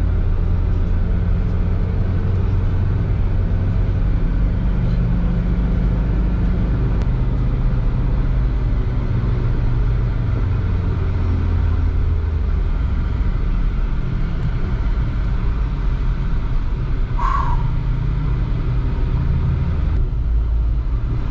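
Suzuki Vitara's diesel engine and road noise heard from inside the cabin while driving, a steady low drone whose pitch shifts about halfway through as the engine speed changes.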